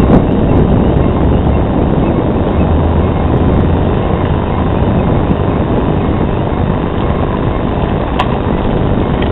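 Loud, steady rumble of an airliner's engines.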